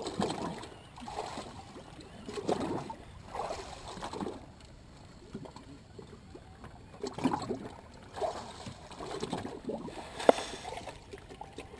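Sea water lapping and slapping against the stern and outboard legs of a drifting boat in irregular splashes, with a single sharp knock about ten seconds in.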